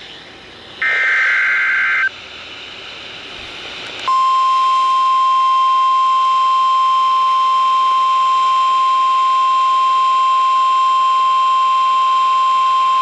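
Emergency Alert System broadcast: the last SAME header data burst, a short electronic screech lasting about a second, then after a two-second gap a loud, steady single-pitch alert tone near 1 kHz that holds for about nine seconds. This is the NOAA Weather Radio 1050 Hz warning alarm tone, which signals that a tornado watch announcement is about to follow.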